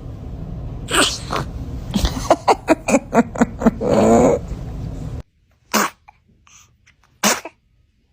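Baby sneezing: a run of short, quick bursts in the first half, then two short, sharp sneezes near the end, about a second and a half apart.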